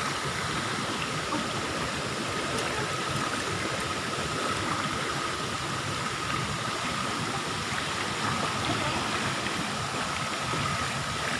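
Steady rush of water flowing into a rock-lined natural pool, with a thin steady high tone over it.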